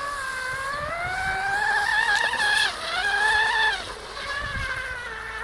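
Radio-controlled F1 model racing boat's motor whining at high revs, its pitch climbing and falling twice as the throttle is opened and eased, then settling lower near the end.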